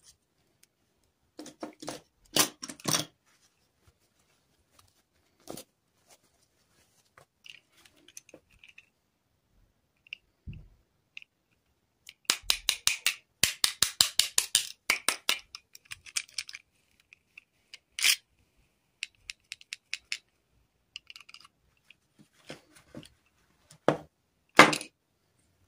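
Hands handling plastic fashion dolls and their dresses: scattered clicks, taps and rustles, with a dense run of rapid clicking and rustling about halfway through and a few sharper clicks.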